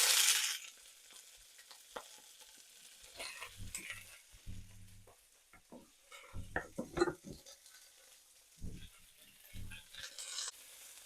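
Green beans frying in hot oil with egg in a pan: a loud sizzle at the start that dies away within a second. Then a spatula stirs and scrapes the pan in irregular strokes with dull knocks, and there is another brief sizzle near the end.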